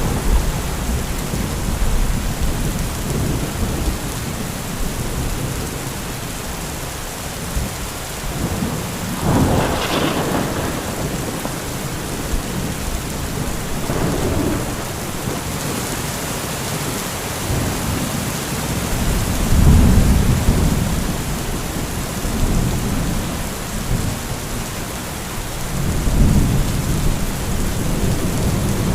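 Heavy thunderstorm: steady rain with repeated rolling thunder. A sharper thunderclap comes about a third of the way in, and deep rumbles swell up about two-thirds of the way through and again near the end.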